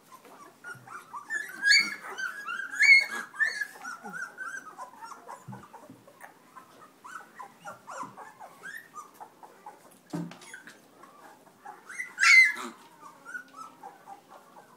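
Newborn black Labrador puppies whimpering and squeaking in many short, high calls while they nurse. The calls are busiest around two to three seconds in, and there is one louder squeal about twelve seconds in.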